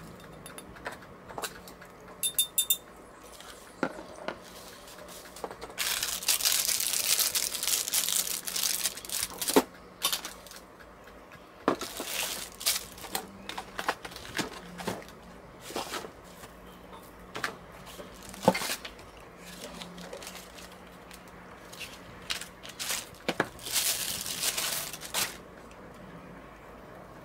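Plastic packaging and bubble wrap crinkling in several long stretches as tool parts are unwrapped from a cardboard box, with scattered sharp knocks and clicks of parts being handled and set down.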